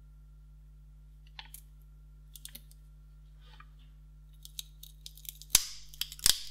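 Cylindrical lithium-ion cells of a laptop battery pack handled in the hands: scattered light clicks at first, growing denser toward the end with a few sharp knocks and a brief rasp. A faint steady low hum underneath.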